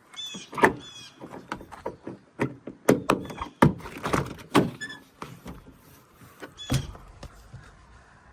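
An irregular run of sharp plastic clicks and knocks, with a few short high squeaks, as the dash trim and radio plug of a Ford van are handled; the sounds thin out toward the end.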